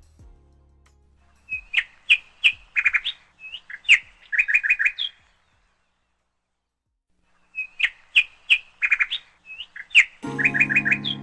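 Birds chirping in quick runs of short, high notes, in two stretches separated by a few seconds of complete silence. Music comes in about a second before the end.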